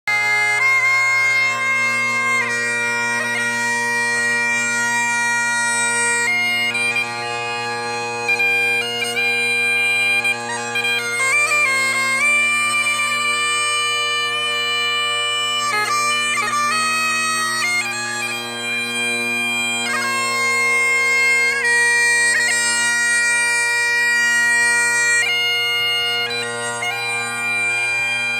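Bagpipes playing a tune: a melody steps from note to note above steady, unbroken drones.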